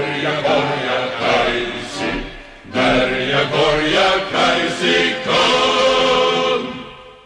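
Group of voices singing a rhythmic chant, choir-like, laid on as music; it fades out near the end.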